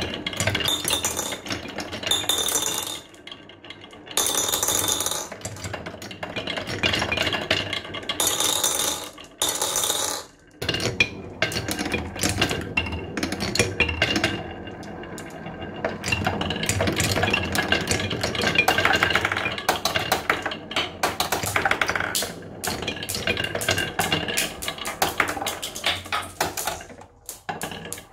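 Glass marbles rolling and clattering down wooden marble-run tracks, a dense run of rapid clicks and rattles as they knock against the wood and each other, with a couple of brief lulls.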